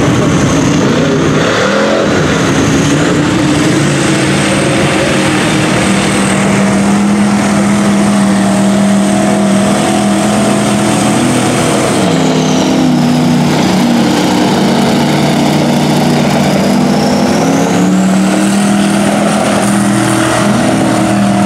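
Engine of a lifted Chevy mud truck running hard at high revs as it drives through a mud pit. The revs sag about halfway through and climb again near the end.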